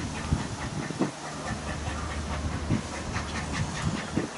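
Steam locomotive pulling a train slowly, with steam hiss and a quick regular beat of exhaust, about four pulses a second, over a low rumble.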